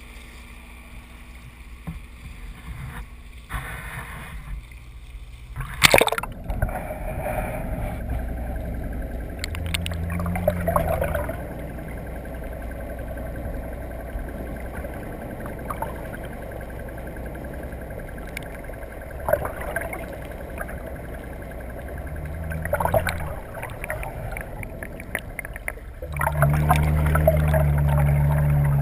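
A sharp splash about six seconds in as the microphone plunges under the sea surface, then a muffled underwater rumble. Through it a boat engine's low drone swells up several times, loudest and steadiest near the end.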